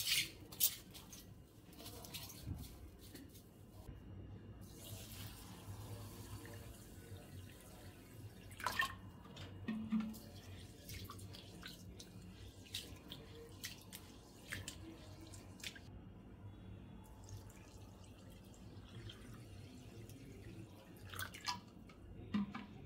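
Raw rice being washed by hand in a glass bowl: water running in, swishing and dripping, with scattered light clicks and knocks.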